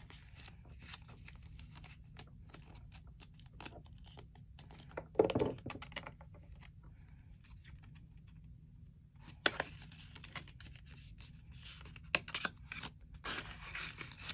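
Paper money and envelopes being handled: soft rustling and crinkling with scattered small clicks, and one louder thump about five seconds in.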